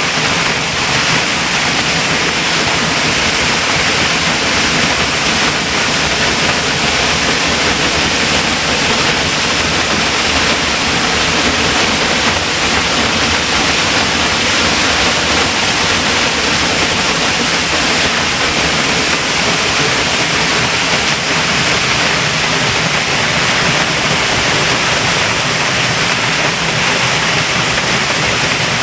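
A waterfall in heavy spate after torrential overnight rain, its water falling about 100 feet into the pool at its base, heard from the foot of the falls with a handheld microphone pointed at it: a loud, steady rush of falling water.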